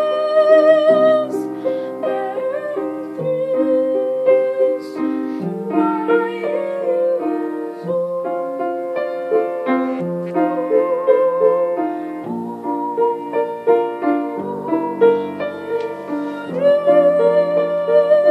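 A girl singing long held notes with vibrato while accompanying herself on an upright piano.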